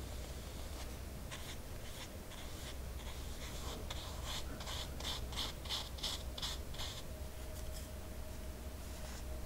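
Paintbrush bristles stroking poster colour paint onto hot-pressed watercolour paper: a run of short brushing strokes, about two a second, busiest in the middle and thinning out near the end.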